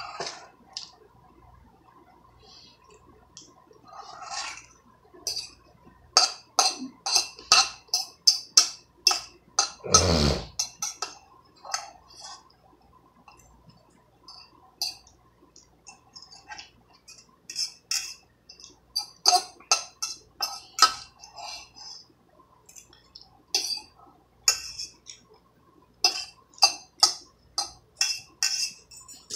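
A metal utensil scraping and clinking against the inside of a small stainless-steel saucepan while eating from it: runs of quick sharp clinks with gaps between, and a short sound falling in pitch about ten seconds in.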